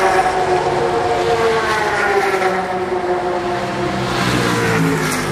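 Race cars passing at speed on the track, one after another, each engine's pitch falling as it goes by.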